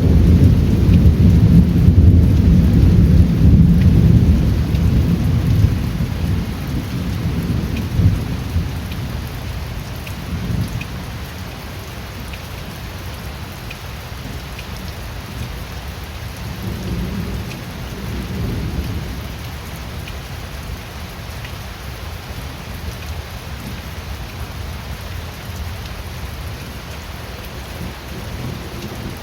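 Steady rain with thunder: a deep roll of thunder in the first few seconds fades away over about ten seconds, two fainter rumbles come in the middle, and the rain hiss runs on evenly.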